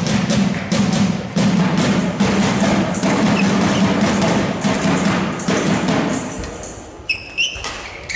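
Rhythmic drumming and clapping from the crowd, dropping away about six seconds in. Near the end, a few sharp squeaks of court shoes on the hall floor.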